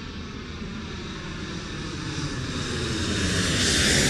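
Light propeller aircraft's piston engine running and growing steadily louder.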